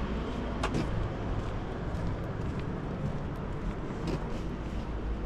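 Steady outdoor street background noise with a low rumble and a couple of light clicks.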